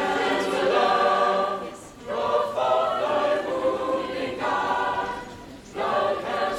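A mixed youth choir singing held, sustained phrases, with short breaks about two seconds in and again near the end.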